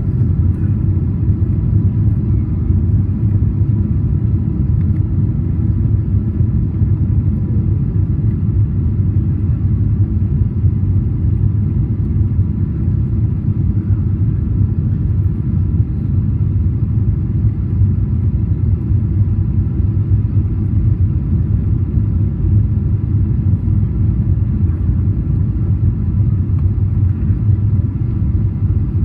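Steady low rumble inside the cabin of a Boeing 777-300ER descending on approach with flaps extended: the GE90 engines and the airflow over the wing, with a faint steady whine above it.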